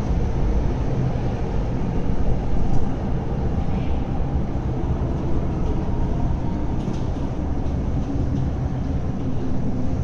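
MTR Kwun Tong Line train running through an underground station: a steady, loud rumble of wheels and traction equipment.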